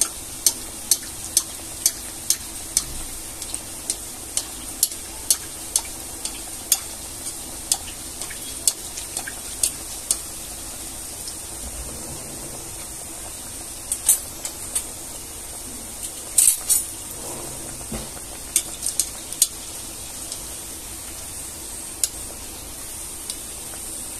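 Puri sizzling as it deep-fries in hot oil in a metal kadai, with a perforated metal spoon clinking against the pan about twice a second as oil is spooned over it. After about ten seconds the clinks thin out to scattered taps.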